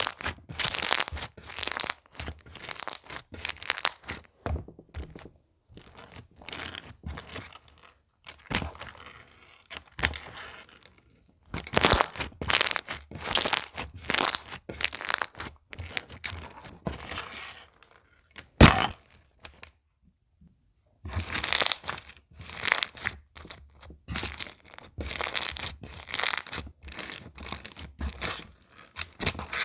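Slime being squished, stretched and poked by hand, giving a run of crackling, crunchy pops and sticky clicks. One sharp, louder click comes about two-thirds through, followed by a short pause.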